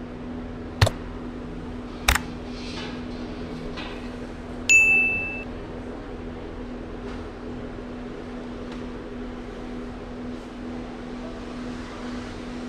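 Steady electrical hum of a shop interior, with two sharp clicks about one and two seconds in and a single high electronic beep about five seconds in.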